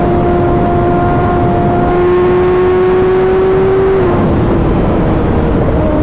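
2024 Kawasaki ZX-6R's 636 cc inline-four running hard at highway speed, its pitch creeping up as it pulls, then stepping down in a quick-shifter upshift about four seconds in without a break in power, over steady wind and road rush.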